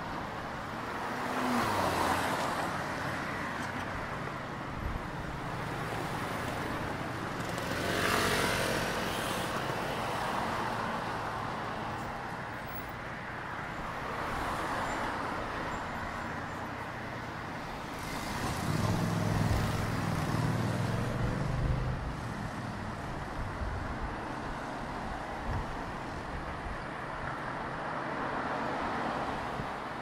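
Road traffic on a multi-lane city street: cars passing one after another over a steady traffic hum, with a heavier vehicle's engine rumble swelling about nineteen seconds in.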